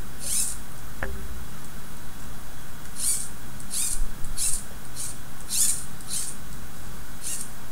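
Short, high-pitched squeaks of plastic parts and string rubbing as a Robotis OLLO plastic crane's string-and-pulley hoist is worked by hand, with one early squeak and then a quick run of about seven from a few seconds in. A single click about a second in.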